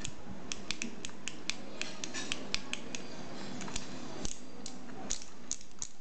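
Small sharp clicks at an irregular pace, several a second, over a faint steady hum.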